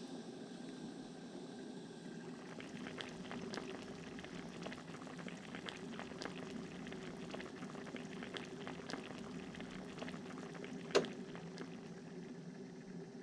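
Water at a rolling boil in a glass saucepan, bubbling with many small pops, with shiitake mushrooms blanching in it. A single sharp click near the end.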